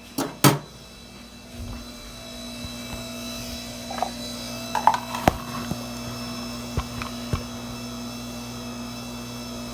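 Electric pasta maker's motor running steadily as it mixes the dough, the hum growing a little louder about a second and a half in, with a few sharp knocks and clicks.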